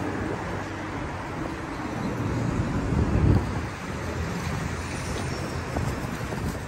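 City street traffic: a steady rumble of passing vehicles, swelling as one passes close about three seconds in.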